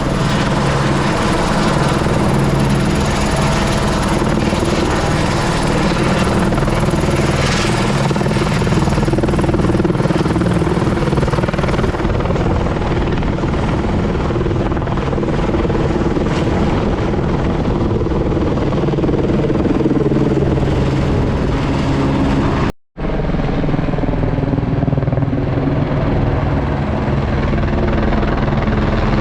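Helicopter running steadily, a dense even noise with steady low engine and rotor tones beneath. The sound drops out for a split second about 23 seconds in, then resumes unchanged.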